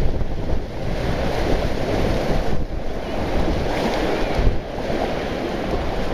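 Small sea waves breaking and washing over a rocky shore, with wind buffeting the microphone as a steady low rumble.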